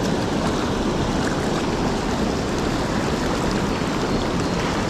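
Creek water rushing, a steady even noise.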